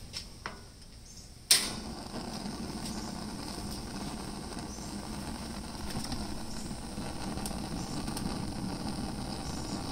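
Solo Stove Pi Prime propane pizza oven being lit: a couple of faint clicks from the control knob, then a sudden loud burst as the gas catches about a second and a half in, followed by the steady rushing of the burner flame.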